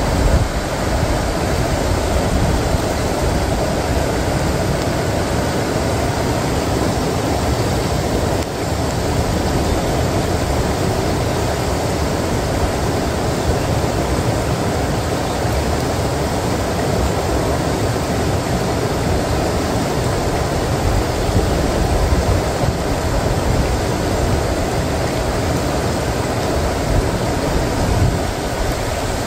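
Fast-flowing river water close to the microphone: a loud, steady rush with no break.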